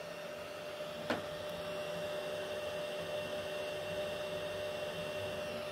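Anycubic Kobra 3 3D printer running its vibration compensation (resonance detection) test: a steady machine hum made of several held tones, with one sharp click about a second in. The highest tone drops out near the end.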